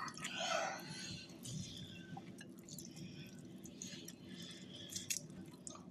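Chewing and mouth noises of people eating, with a few light clicks scattered through.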